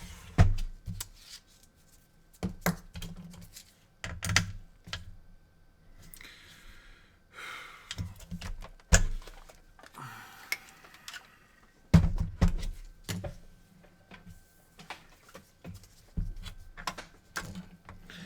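Irregular clicks, taps and knocks of hands handling a PS4 console and tools on a workbench, with a couple of brief rustling sounds in the middle.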